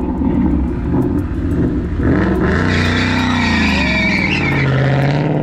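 A car engine revving hard, climbing in pitch about two seconds in, with tyres squealing over it from then on, as a car spins its wheels showing off.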